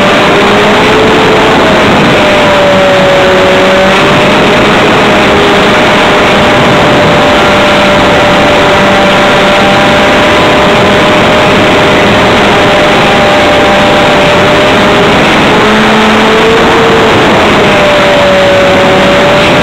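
An RC model airplane's motor and propeller running in flight, picked up by a camera on the plane. A loud steady drone whose pitch drifts slightly up and down under a dense rushing hiss.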